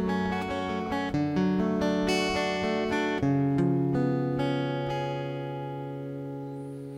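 Acoustic guitar playing a gentle picked introduction. The last chord, struck a little past three seconds in, rings on and slowly fades away.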